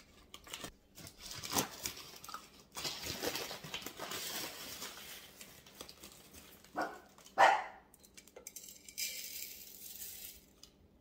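A cockapoo gives a few short barks, the loudest about seven and a half seconds in, over rustling and handling noise.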